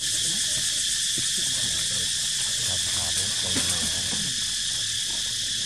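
Steady, high-pitched chorus of insects droning without a break.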